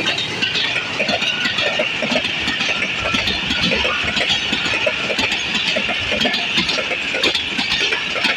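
Passenger coaches of an express train rolling past close by. The wheels clatter and click rapidly on the track over a steady rushing hiss.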